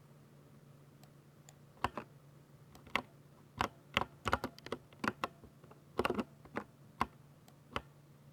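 Keystrokes on a 60% mechanical keyboard with Ducky silver switches: after about two seconds without keystrokes, single key presses come at an irregular pace, with a quick run of several keys about six seconds in.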